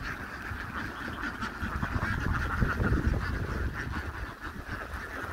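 A large flock of domestic ducks quacking together in a dense, continuous chorus of overlapping calls.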